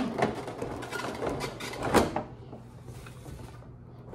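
A cardboard box and a clear plastic clamshell tray being handled as the tray is slid out: scraping and rustling, with a sharp knock at the start and another about two seconds in.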